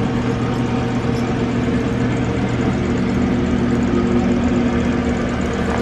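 Mercedes-AMG GT's twin-turbo V8 running at a steady idle just after a cold start.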